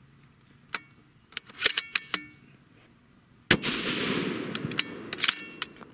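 A single shot from a 6.5 Creedmoor precision rifle fitted with a muzzle brake, about halfway through: a sharp crack followed by a long fading echo. A few faint clicks come before it.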